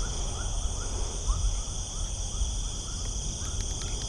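Night chorus of crickets and other insects: several steady high-pitched trills, with short rising chirps repeating two or three times a second beneath them, over a low rumble.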